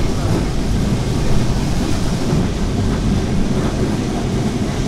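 Vintage Lisbon tram rolling along its street rails, heard from aboard: a steady low rumble of the wheels and running gear.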